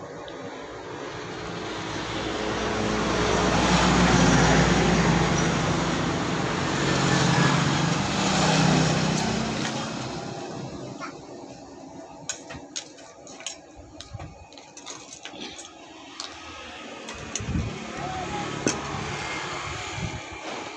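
A motor vehicle passes close by: engine and road noise swell to a peak about four seconds in, rise again around nine seconds, then fade away. After that come scattered short clicks and taps.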